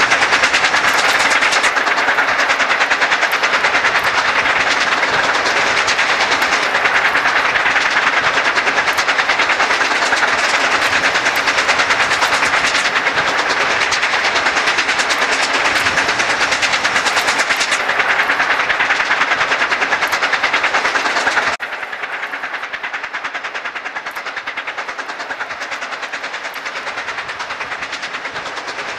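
Steam locomotive working upgrade, its exhaust coming in rapid, closely spaced beats. About three-quarters of the way through, the sound suddenly becomes quieter and then carries on.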